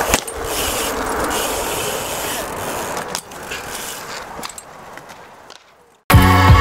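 BMX bike riding on skatepark concrete: tyres rolling, with a sharp clack of the bike hitting the ground at the start and another about three seconds in. The sound fades out, and loud music cuts in near the end.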